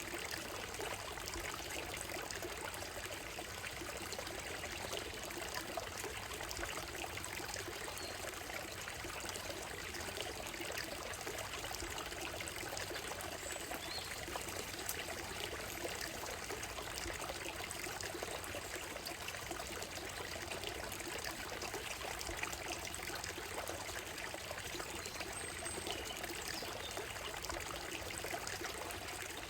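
Shallow stream running steadily over a gravel and stone bed, trickling and babbling. Now and then a bird chirps faintly in the trees.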